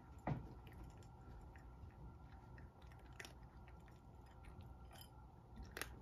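Cat crunching dry kibble, faint, with a few sharp clicks scattered through. The first and loudest comes just after the start.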